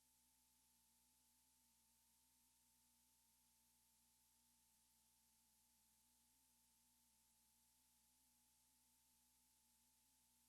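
Near silence: only a faint steady hiss with a faint hum of two steady tones.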